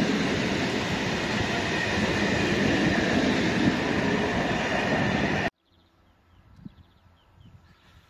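Freight train hauled by an ET42 electric locomotive rolling past, a loud steady rumble of wheels on rail that cuts off suddenly about five and a half seconds in. Faint bird chirps follow.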